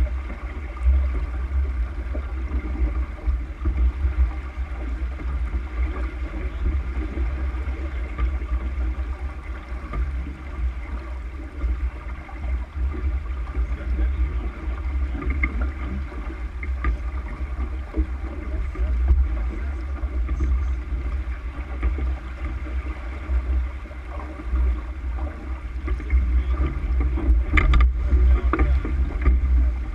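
Water rushing along the hull of a sailboat under sail, with wind buffeting the microphone in a heavy low rumble. A short knock comes near the end.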